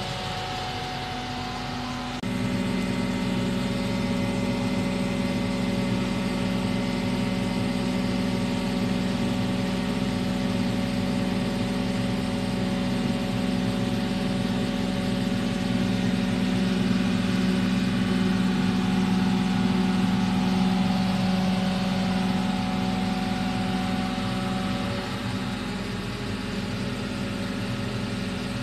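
Sany STC800 mobile crane's diesel engine running steadily, heard from inside the cab while the crane holds a tower section on its hook. About two seconds in the engine picks up and gets louder, and it eases back a few seconds before the end.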